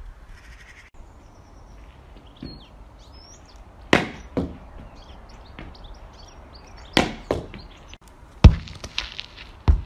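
Wooden hurley striking a sliotar: a few sharp knocks with gaps between them, the first about four seconds in and the loudest about eight and a half seconds in, some followed by a smaller click. Birds chirp faintly in the background.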